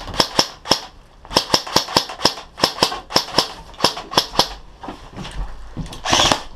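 Airsoft rifle firing single shots in quick, uneven succession, about twenty sharp cracks over four and a half seconds. A short, louder rush of noise comes near the end.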